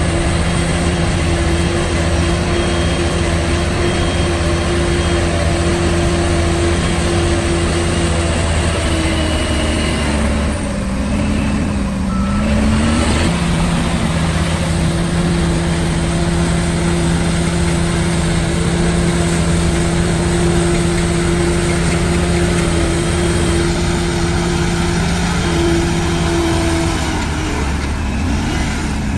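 Heavy diesel engine of earthmoving machinery running steadily. Its note dips and recovers briefly about ten seconds in and again near the end, as the load on the engine changes.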